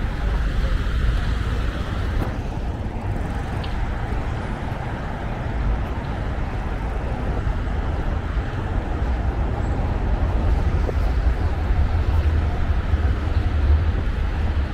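Steady road traffic on a multi-lane highway: a continuous wash of tyre and engine noise with a deep rumble, swelling a little in the second half.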